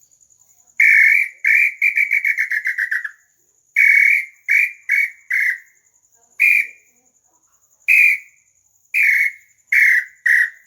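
Handmade wooden bird-call whistle (pio) being blown: loud whistled notes, first a quick run of short notes that sink slightly in pitch, then single notes and short groups with pauses between.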